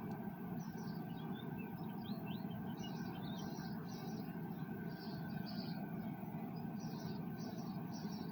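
Birds chirping in short, repeated high phrases, with a few quick rising chirps about a second and a half in, over a steady low background of outdoor noise.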